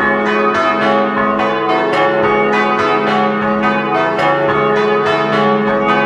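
Simulated peal of four swinging church bells struck in a falling order, smallest to largest, about three strokes a second. They are three 1929 bells tuned C♯4, E4 and F♯4, plus an added smallest bell on A♭4.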